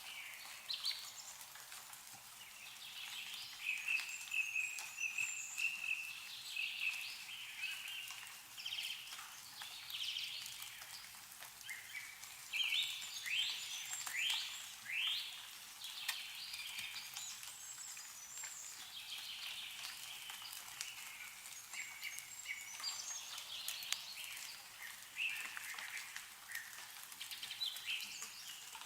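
Several birds calling and singing, with one drawn-out call a few seconds in and a quick series of falling notes about halfway through. Scattered light ticks of meltwater dripping from snowy trees run underneath.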